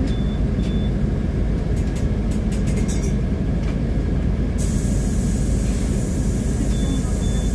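Heavy vehicles running in a steady low rumble, with a short high double beep near the start and again near the end. About halfway through, a hiss sets in and carries on.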